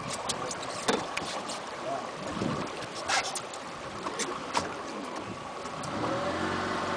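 River water rushing and lapping along an aluminium boat hull, with scattered knocks and clicks. About six seconds in, the steady hum of a boat motor running comes in.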